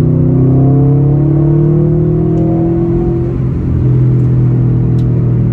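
2020 Subaru WRX STI's turbocharged 2.5-litre flat-four running through a Magnaflow Competition catback exhaust, heard from inside the cabin with the windows up. The engine note climbs under acceleration for about three seconds, briefly drops off, then holds steady.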